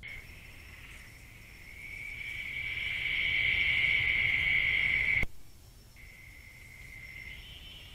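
Night insects trilling: a steady high-pitched trill that swells louder over a few seconds, breaks off suddenly just past five seconds in, then comes back fainter.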